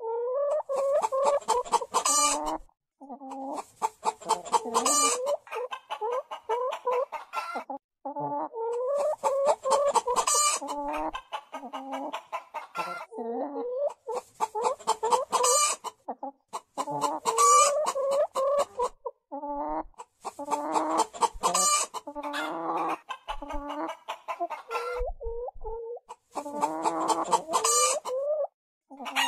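Hen cackling in repeated phrases: a run of quick clucks that builds to a louder, higher squawk, over and over every two to three seconds with short pauses between.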